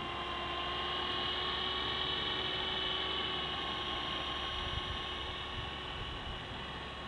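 Small electric RC helicopter's motor and rotors whining steadily in flight, a little louder about a second in, then easing off slightly.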